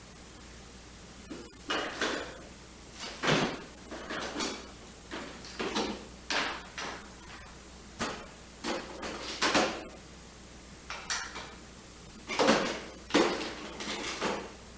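Metal hand tools, mostly screwdrivers and pliers, clinking and clattering against each other as they are picked through and moved around in a tool box. The clatters come in irregular handfuls, starting about a second in.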